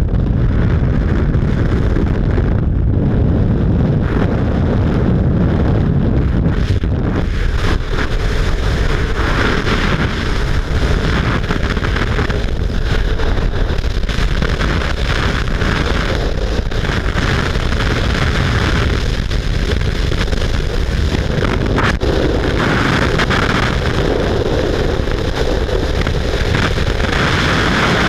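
Loud, steady wind rush buffeting a helmet camera's microphone in skydiving freefall, preceded by the roar of the jump plane at its open door; the sound changes partway through as the jumpers leave the aircraft, with the wind surging unevenly after that.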